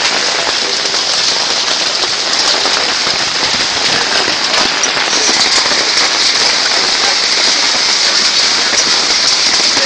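Heavy rain mixed with small hail pelting down during an intense storm: a steady, dense hiss of countless tiny impacts.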